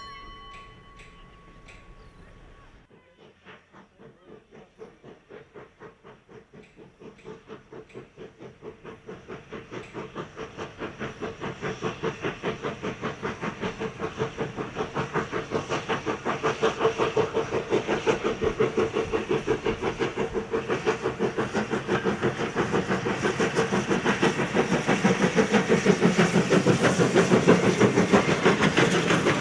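Steam locomotive approaching: its rhythmic chuffing and hiss start faint about three seconds in and grow steadily louder.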